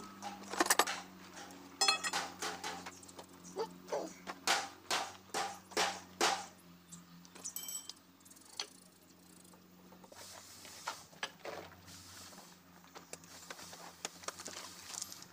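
Sharp metal clanks and knocks from tools and parts being worked inside a motor grader's tandem drive housing, several a second for about the first six seconds, then sparser and fainter, over a low steady hum.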